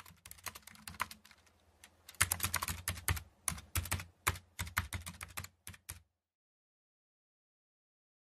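Typing sound effect: rapid, irregular keyboard key clicks, stopping about six seconds in.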